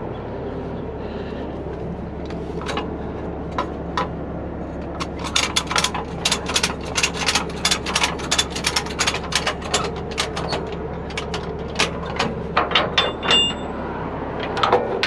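A heavy tow truck's engine idling steadily, with a rapid, irregular run of metallic clinks and clanks from about five seconds in as steel safety chains are handled and hooked up.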